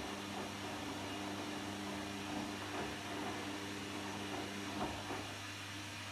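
Washing machine running a wash cycle: a steady motor hum with a few soft knocks as the laundry tumbles in the drum, the clearest a little before the end.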